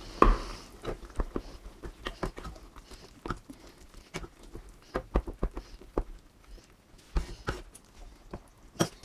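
Spatula stirring a thick makhana and pea curry in a kadai: irregular soft clicks, taps and scrapes of the spatula against the pan and through the gravy.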